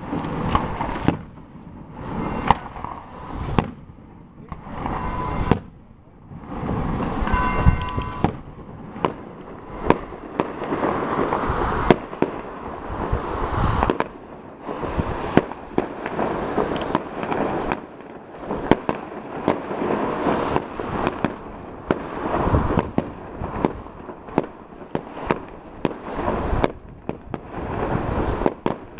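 Fireworks going off in a continuous run of bangs and crackling bursts, with a short whistling tone about seven seconds in.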